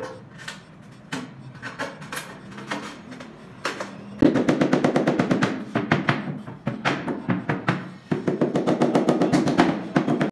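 Rubber mallet tapping a large glazed floor tile down into its mortar bed: scattered knocks at first, then two runs of rapid taps, one starting about four seconds in and another after about eight seconds.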